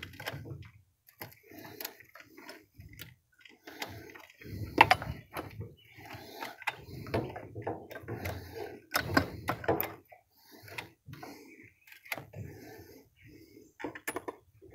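Steel saw chain clinking and rattling as it is worked by hand into the bar groove and around the drive sprocket of a Stihl 661 chainsaw, in irregular clicks and knocks with a few sharper metal knocks.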